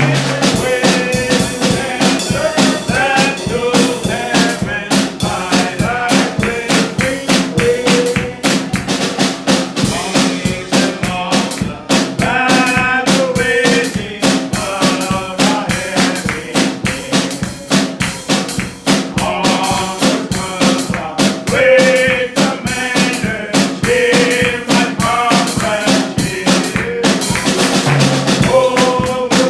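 Live church band playing a hymn, with a steady drum-kit beat of kick, snare and rimshots under a wavering melody line and a sustained chord.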